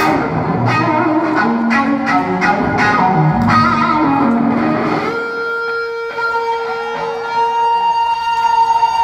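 Live blues-rock band playing at full volume: electric guitar, bass and drums. About five seconds in the drums drop out and the electric guitar holds one long note, then a higher note that bends and wavers.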